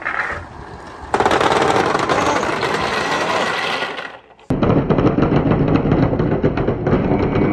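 Glass marbles and balls clattering as they roll through a long clear plastic pipe and down a wooden pegboard slope, a dense steady rattle that starts about a second in. It drops out briefly around the middle and resumes as a stream of blue glass marbles pours out of the pipe.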